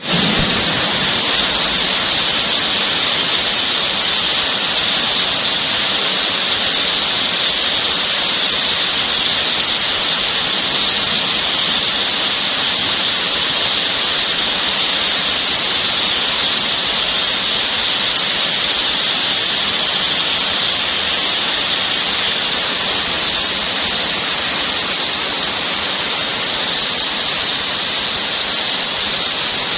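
Steady heavy rain falling, an even hiss that is loudest in its high, sharp part and holds the same level throughout.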